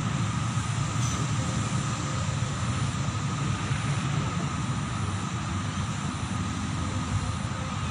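Steady low rumble of distant city noise, with a faint steady higher tone above it.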